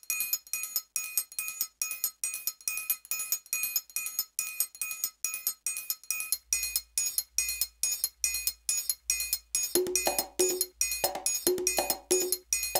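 Electronic dance track assembled from Dance eJay loops: a quick, even percussion pattern of about four bell-like ticks a second. A low bass pulse joins about halfway, and a keyboard-like melody enters in the last few seconds.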